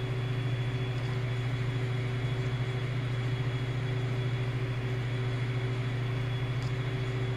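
Steady hum and whir of a disassembled DLP projector running: its cooling fans and spinning color wheel, with a faint high-pitched tone over it.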